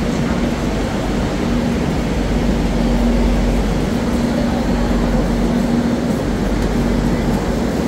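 Metro train standing at an underground platform with its doors open, its onboard equipment running with a steady low rumble and a hum that keeps breaking off and coming back.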